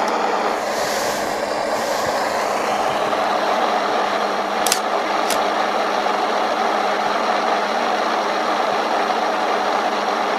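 Steady hiss of static-like noise with nothing below the low bass, and two faint ticks about halfway through.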